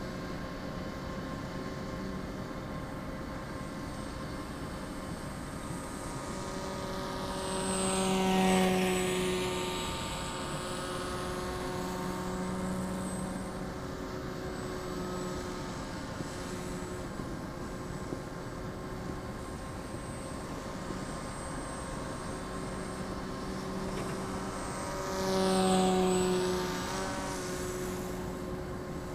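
E-max CF2822 brushless motor spinning the pusher propeller of a scratch-built R/C foam plane, a steady drone that swells loud twice as the plane makes low passes, about eight and twenty-six seconds in.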